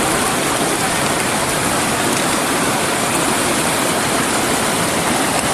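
Mountain valley stream: a steady, loud rush of flowing water.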